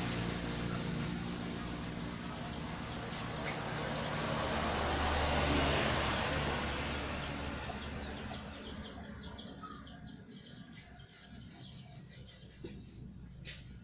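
Rusi 100 motorcycle engine running, rising a little about five seconds in and then fading away, leaving faint bird chirps near the end.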